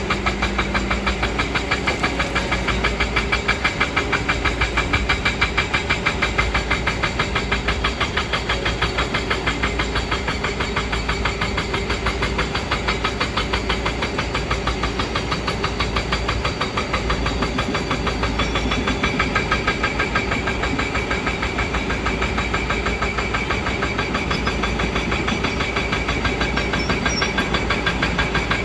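Kobelco excavator's diesel engine running steadily with an even, rapid pulse.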